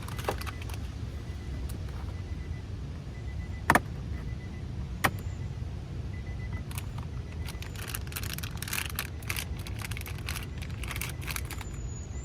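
Sharp plastic clicks and scraping from a small pry pick working on a car door's lower trim light: a loud click a little under four seconds in and another about a second later, then a busy run of clicks and scrapes for several seconds, over a steady low rumble.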